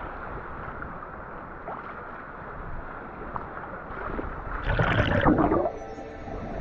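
Sea water sloshing and lapping against a camera held at the surface, heard muffled. About five seconds in comes a louder splash and gurgle as the camera dips under the water.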